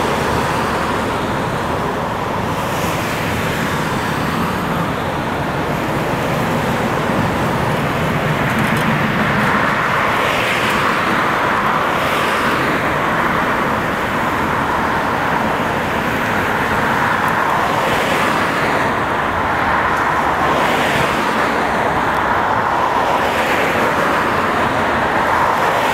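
Cars passing one after another at road speed, with steady tyre and engine noise swelling as each car goes by.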